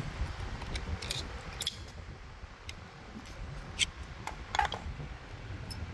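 Small metallic clicks and scrapes of a steel pick working a snap ring out of its groove on a Cessna nose gear strut: a string of irregular sharp ticks, the loudest about four seconds in, over a low steady rumble.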